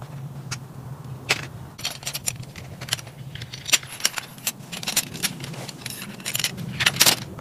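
Metal tent pole sections clicking and clinking together as the poles are fitted and extended, a scatter of sharp metallic ticks at irregular intervals.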